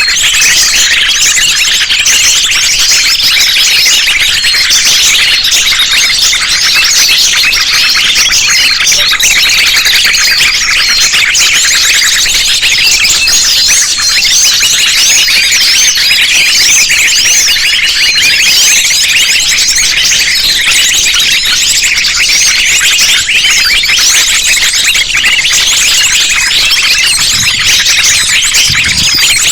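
A dense, unbroken chorus of high, rapid chirping and twittering from many small birds, calls overlapping one another. This is a mixed bird-lure recording of sunbirds and other small songbirds.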